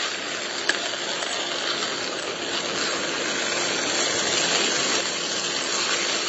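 Zarda rice sizzling in ghee in a nonstick pan as it is stirred with a spatula: a steady hiss, with one short click less than a second in.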